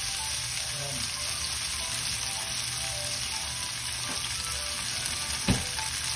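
Chopsuey ingredients sautéing in a pan: a steady sizzle of frying, with a single sharp knock near the end.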